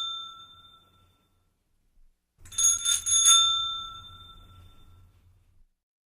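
A small bell ringing. A first ring dies away at the start, then a quick run of three or four rings comes about two and a half seconds in and rings out over about two seconds.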